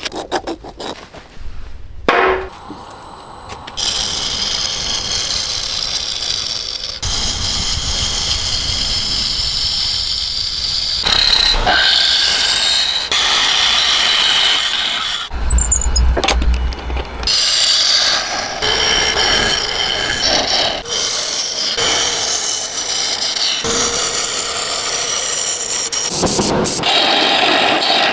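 Turning tool cutting a spinning wood block on a lathe: a continuous scraping cut whose pitch shifts as the tool moves, after a few sharp knocks in the first couple of seconds.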